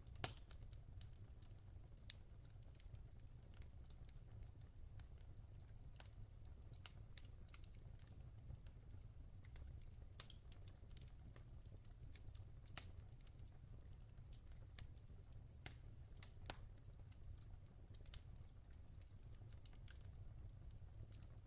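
Log fire crackling: scattered, irregular sharp pops and ticks, the two strongest in the first couple of seconds, over a low steady rumble.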